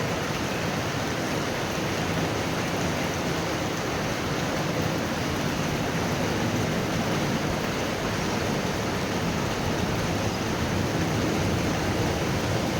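Heavy thunderstorm rain falling steadily, an even hiss.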